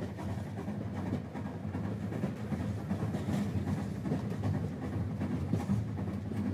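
Model railway train of small locomotive and loaded wagons running along the track: a steady low rumble with fine clicking from the wheels.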